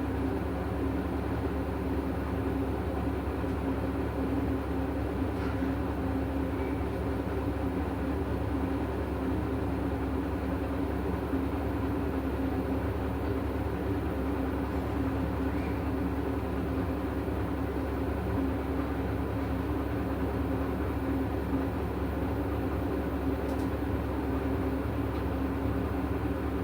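Hisense 8 kg washing machine running a cycle with a duvet inside: a steady, even motor hum.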